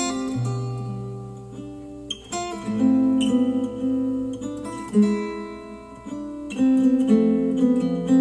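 Acoustic guitar music played back through Polk Audio TSi 200 bookshelf speakers: chords strummed and left to ring, with fresh strums a few times, about two, five and six and a half seconds in.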